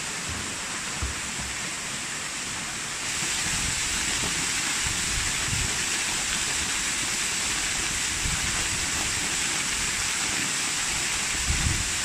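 Waterfall pouring onto rocks and into a pool: a steady rushing hiss of falling water, stepping louder about three seconds in as the sound comes from close under the falls.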